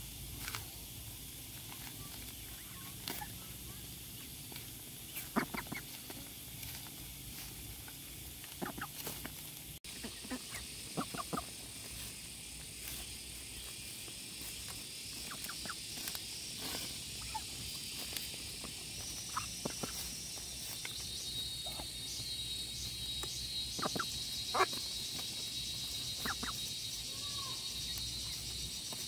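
Insects shrilling steadily in a high pitch band, setting in a little past halfway, over scattered light clicks and knocks.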